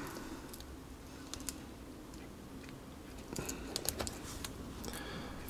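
Faint small clicks and fiddling of fingers handling a laptop display cable and plugging its connector into the back of an LCD panel, with a cluster of clicks about three and a half seconds in.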